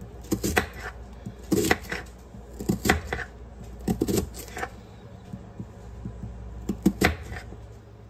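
Kitchen knife cutting through a peeled onion held in the hand, in short bursts of sharp cuts about a second apart, with a pause of about two seconds before the last. A steady low hum runs underneath.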